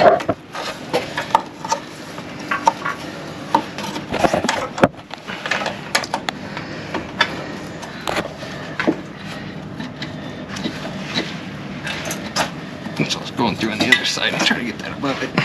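Irregular clicks, taps and scraping as a wiring harness and its plastic connector are pushed and fished through a tight hole in a Jeep Wrangler JL's steel frame, the connector knocking against the metal.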